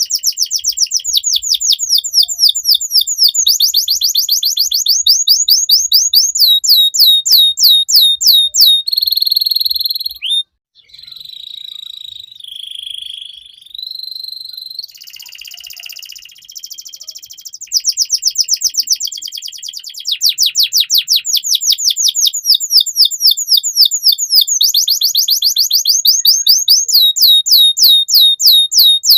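Domestic canary singing: long trills of rapidly repeated down-sweeping notes, changing to a few seconds of softer, more sustained whistled phrases about a third of the way in, then rapid trills again.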